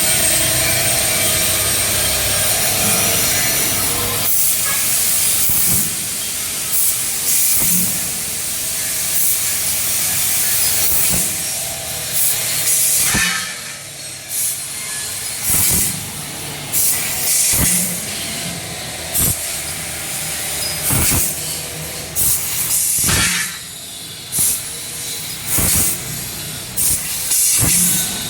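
Laser cutting machine running: a steady hiss, with short louder bursts every second or two from about halfway through.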